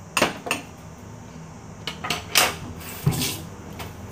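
Kitchen items being handled on a countertop: a handful of short knocks and clinks, with a duller thump about three seconds in.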